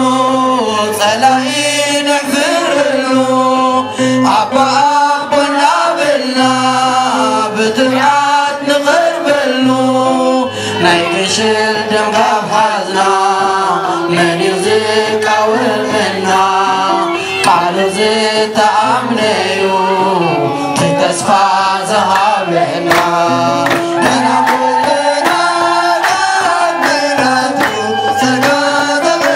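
A group of women singing an Eritrean Orthodox hymn in unison, accompanied by the steady beat of a kebero drum and hand clapping.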